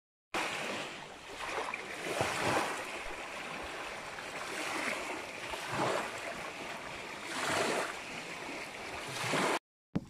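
Small choppy waves breaking and washing up a sandy river shore in a steady rush that swells with each wave every second or two. The water is churned up by a strong wind.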